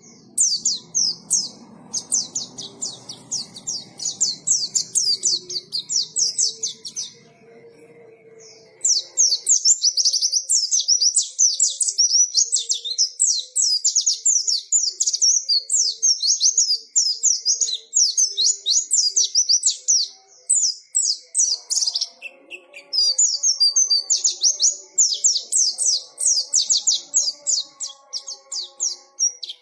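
White-eye (pleci) singing a fast, high, chattering song of rapid chirps and trills. It starts sparse, becomes dense and continuous about nine seconds in, pauses briefly about two-thirds of the way through, then resumes.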